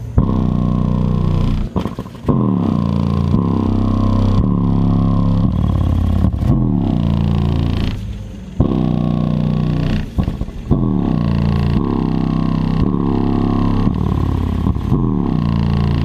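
Sundown Audio car subwoofer playing loud, deep bass whose notes repeatedly slide down in pitch. There are brief drop-outs about 2, 8 and 10 seconds in.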